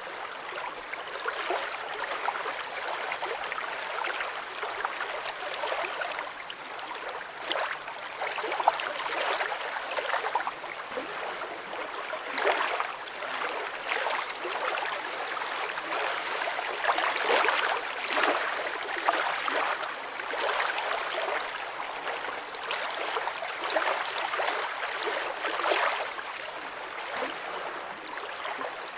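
Lake water lapping and flowing in a steady rush, with many small irregular splashes.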